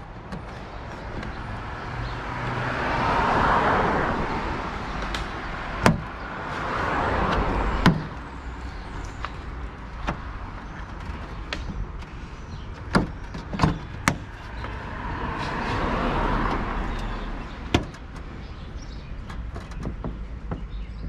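Cars passing by, three times in turn, each rising and fading over a few seconds, with scattered sharp clicks and knocks of plastic trim and hand tools at the car's trunk.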